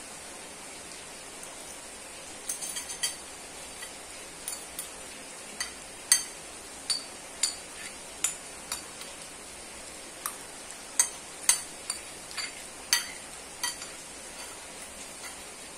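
Metal spoon and fork clinking and scraping against a ceramic plate while scraping up the last of the noodles: about twenty sharp, irregular clinks, some in quick clusters, over a steady hiss.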